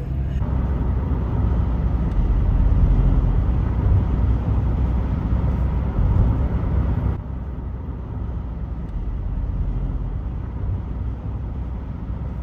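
Road and engine noise inside a moving car's cabin: a steady low rumble, which drops to a quieter, duller rumble about seven seconds in.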